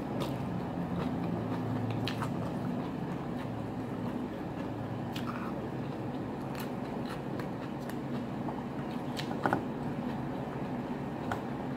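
Close-up chewing and biting of food, with scattered sharp clicks and a brief louder crack about nine and a half seconds in, over a steady low hum.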